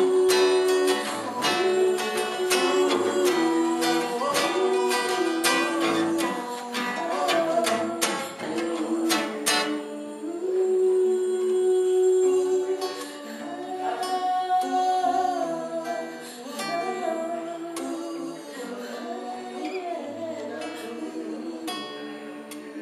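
Live singing with a strummed small acoustic guitar. Steady strumming carries the first half, then the strums thin out and the voice holds long notes, growing quieter toward the end.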